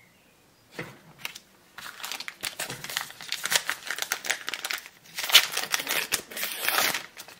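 A foil booster-pack wrapper being torn open and crinkled by hand. The dense crackling starts about two seconds in and is loudest near the end.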